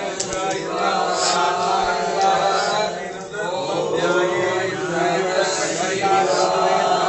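Men chanting Hindu mantras together in a steady, continuous recitation: the ritual chant that accompanies a shankabhishekam of a Shiva lingam.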